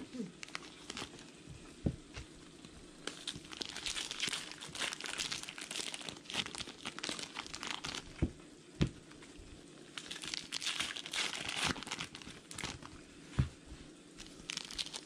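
Baseball card pack wrappers being torn open and crinkled by hand, in several bursts of crackling, with a few short knocks in between.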